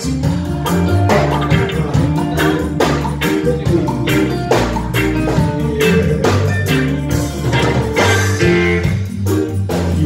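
A live band playing an instrumental passage with electric guitars, keyboard, drum kit and congas, keeping a steady beat, heard through the venue's PA.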